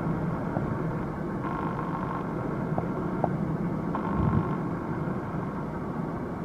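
Boeing 747-400F freighter's four jet engines, a low steady rumble as the aircraft climbs away after takeoff.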